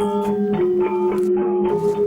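Instrumental music: held notes that change pitch every half second or so over a steady low drone.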